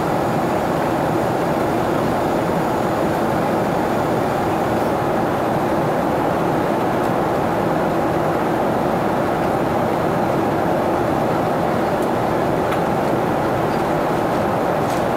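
Steady jet airliner cabin noise in flight: engine and airflow noise heard inside the cabin, even and unchanging.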